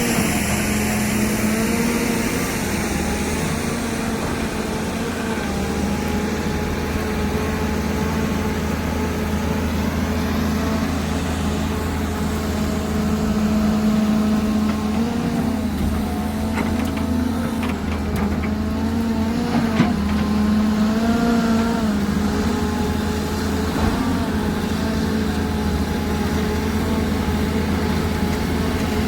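Heavy diesel engine of an excavator working, running steadily. Its pitch rises and falls several times around the middle as it takes load, with a few sharp knocks at the same time.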